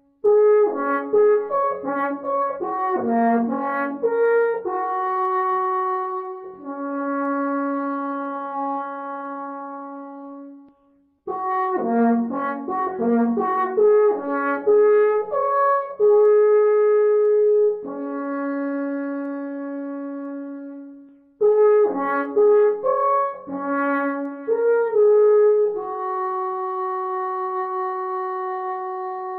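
Horn music: three phrases, each opening with quick ornamented runs of notes and ending on long held notes, with short breaks between the phrases.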